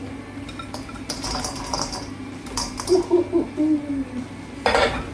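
Fried chicken wings tipped into an aluminium pan of buffalo sauce, knocking and clattering against the metal in quick clusters, with one louder knock near the end.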